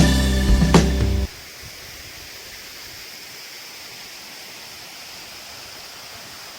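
Guitar background music cuts off abruptly about a second in. A steady, even rush of a waterfall's falling water follows.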